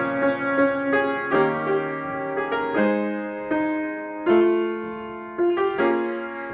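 Solo piano playing a choral song's accompaniment without the voices. Chords are struck about every second and left to ring on, with longer held chords in the middle.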